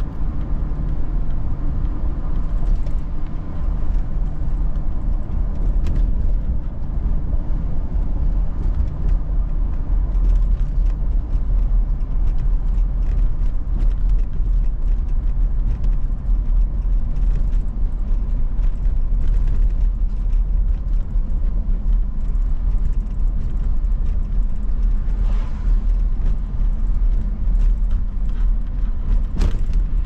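Steady low rumble of a car's engine and tyres, heard from inside the cabin while driving along a city street.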